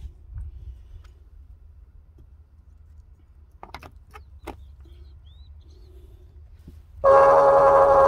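Brass quick-connect hose couplings clicking a few times as they are handled. Then, about seven seconds in, a just-repaired SEAFLO diaphragm water pump starts abruptly and runs with a loud, steady hum, pumping water from the tank.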